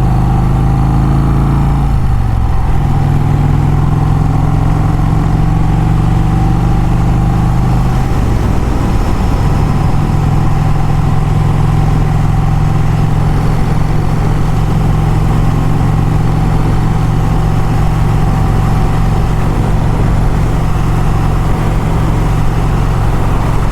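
Motorcycle engine running on the road with a steady rushing noise. The engine note falls and picks back up about two seconds in and again around eight seconds in, then holds steady.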